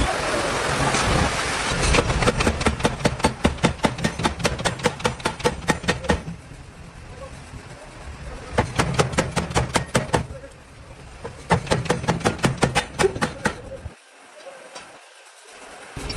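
Rapid, evenly spaced hammer blows on metal, about five a second, in three runs of a few seconds each with pauses between, over a steady low machine hum.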